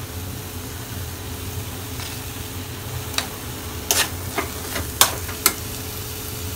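Egg and ground-onion masala sizzling in a steel kadai while a steel spoon stirs it, over a steady low hum. In the second half the spoon clinks and scrapes against the pan about six times.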